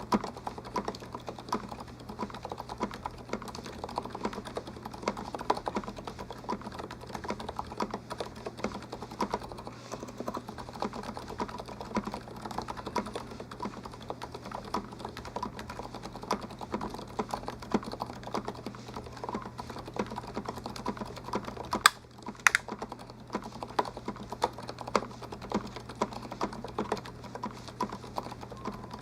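Continuous fast typing on a Happy Hacking Keyboard (HHKB), dense keystroke clacks with a short pause about three quarters of the way through, where two sharper clacks stand out. A steady low hum sits underneath.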